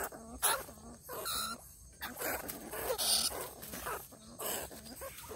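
An animal giving short cries, one about every half second.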